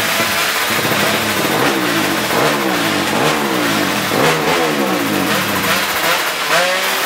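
Drag-racing motorcycle engine revving hard, its pitch climbing and dropping back about five times in quick succession.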